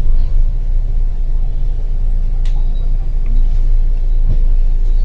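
Steady low rumble of a moving bus's engine and road noise heard from inside the cabin, with a short sharp click about two and a half seconds in.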